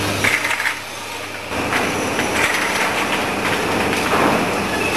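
Rotary bottle washing, filling and capping machine running, a steady mechanical clatter. It drops a little about half a second in and picks up again at about a second and a half.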